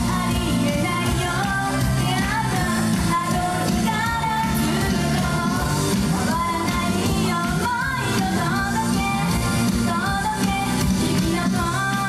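Upbeat J-pop idol song played live: a female idol group singing over a full band backing with a steady beat.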